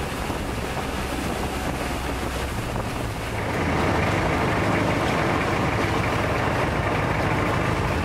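Long-tail boat's engine running steadily under way, with water rushing along the hull and wind on the microphone. The sound gets a little louder about halfway through.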